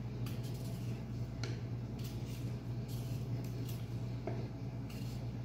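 Small kitchen knife shaving the skin off a taro root (arvi), a string of short, irregular scraping strokes, over a steady low hum.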